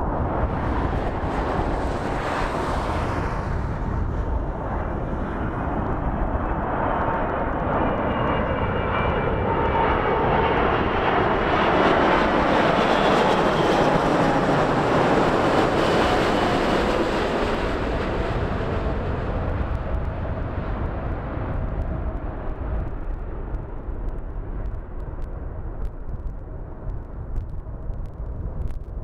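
Airbus A380 on final approach with gear down, its four jet engines passing low overhead: a jet roar that builds to its loudest about halfway through, with a high fan whine while it is nearest, then fades as the aircraft moves away toward the runway.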